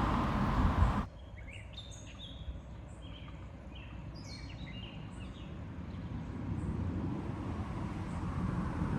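Small songbirds chirping: a flurry of short, high, falling notes a couple of seconds long, over a quiet outdoor background. It is preceded by a loud rushing noise that cuts off abruptly about a second in, and a low rumble builds toward the end.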